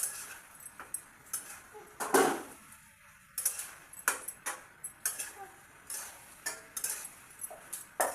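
Metal cooking spoon knocking and clinking against a pan in irregular strikes while vegetables are stirred, the loudest knock about two seconds in.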